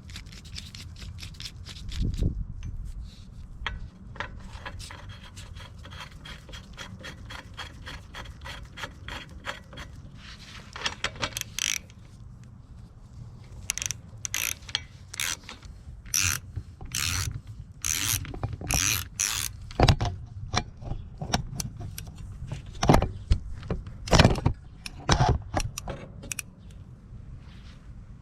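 Hand tools working on a mountain bike's parts as it is stripped down: rapid clicking and scraping, then a run of louder separate knocks and scrapes in the second half.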